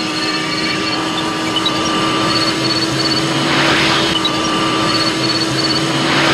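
A sci-fi time-machine sound effect: a steady mechanical hum with a low droning tone, small electronic beeps, and two swells of hiss, one about halfway through and one near the end.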